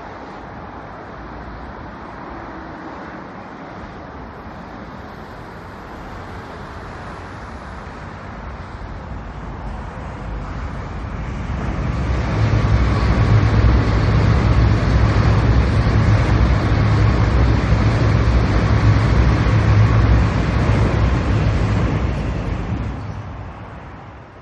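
Seoul Metro Line 1 rheostatic-control electric train passing close by. It grows louder over the first half, runs loud with a deep hum for about ten seconds, then fades near the end.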